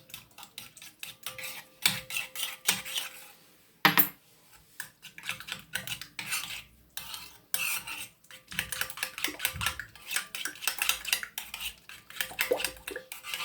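A spoon stirring a mayonnaise and tomato sauce in a bowl, with quick, uneven clinks and scrapes against the bowl and one sharper knock about four seconds in.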